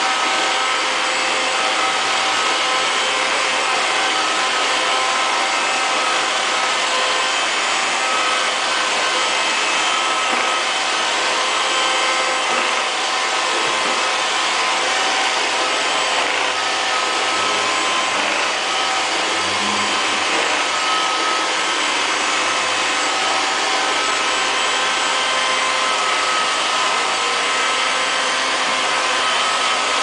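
Liectroux LL-305 robot vacuum cleaner running steadily, its motor making a constant hiss with a few steady whining tones over it.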